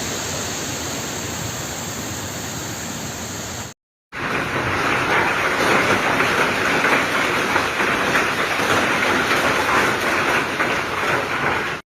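Storm recordings cut together: a steady rush of heavy rain, then, after a brief silent cut about four seconds in, a louder, dense patter of hail pelting down.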